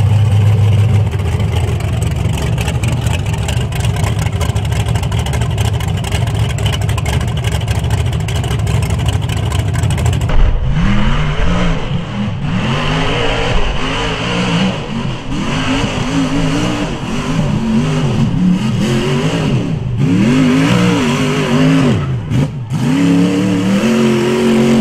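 Rock bouncer buggy's engine running steadily, then, about ten seconds in, revving hard in repeated quick rises and falls as it climbs a rocky hill under load.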